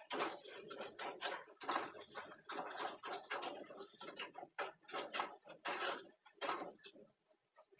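Wire-mesh spider strainer scraping and clinking against a steel kadai while fried gram-flour fritters are scooped out of hot oil, in quick irregular strokes that stop near the end.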